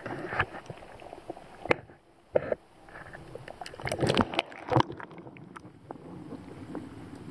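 Muffled noise of a camera held under water, with irregular knocks and short rushes of water as it is moved about.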